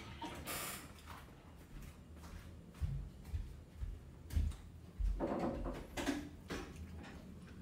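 Scattered clicks of chopsticks against tableware during a meal, with a few dull thumps around the middle.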